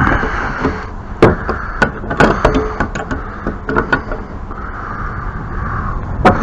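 Hand tools knocking, clicking and clinking irregularly against metal pipe fittings as wrenches are worked on a spigot connection, with a few sharper knocks.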